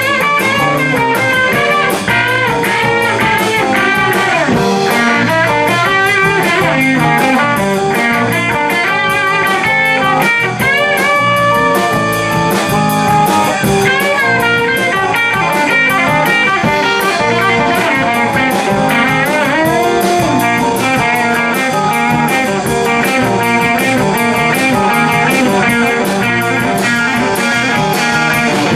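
Live band playing an instrumental passage: electric guitar lead with bent notes about halfway through, over bass guitar and a drum kit.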